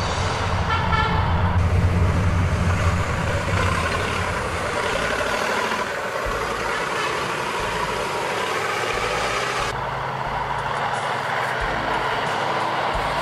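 Heavy off-road rally trucks fording muddy water: big diesel engines pulling under load over the rush and splash of water, loudest in the first few seconds. A short horn-like toot sounds about half a second in.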